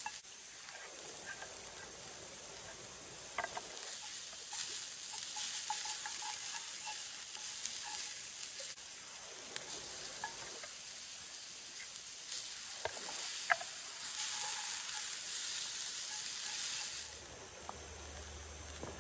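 Sliced onion and chopped red chilli sizzling in a frying pan on a portable gas stove as it is stirred with wooden chopsticks, with a few light clicks from the stirring. The sizzle dies down near the end.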